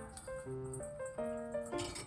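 Background music: a light melody of short, changing notes.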